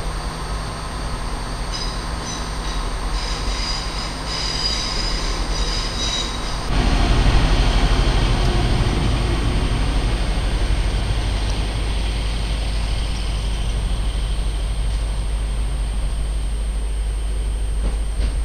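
Diesel train at the platform: wheels squealing in several high tones for a few seconds, then a loud low rumble sets in suddenly about a third of the way in and holds steadily as the train moves.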